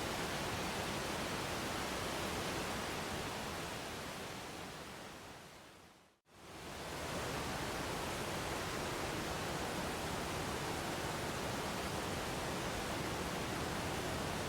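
Steady rushing of a waterfall. About four seconds in it fades gradually down to silence, then swells back up to full level within about a second.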